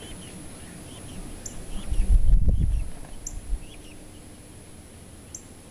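Young chickens peeping in short, soft chirps, with a short high call repeating about every two seconds. A low rumble about two seconds in, lasting about a second, is the loudest sound.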